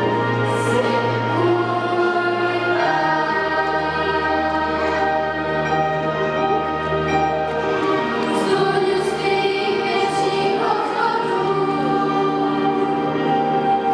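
A girls' choir singing over an instrumental accompaniment, with steady held bass notes that shift to a new chord about three seconds in.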